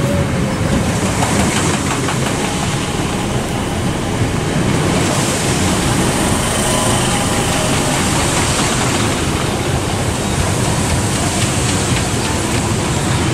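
Class 465 Networker electric multiple unit pulling into the platform, its coaches running past close by with a steady rumble of wheels on the rails.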